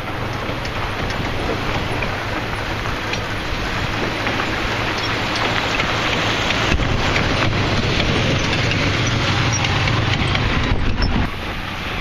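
Lifted off-road van driving slowly over a dirt track: engine running and tyres on dirt, a steady noisy rumble with a low hum that grows louder as the van comes up to and over the camera, then drops suddenly near the end.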